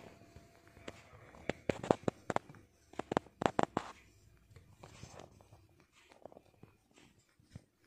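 Tabby cat grooming itself up close, its tongue licking and nibbling at its fur: runs of quick wet clicks, densest in two bursts about two and three and a half seconds in, then softer licking.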